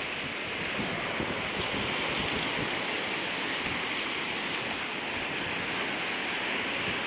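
Steady wash of ocean surf breaking and running up a rocky shore.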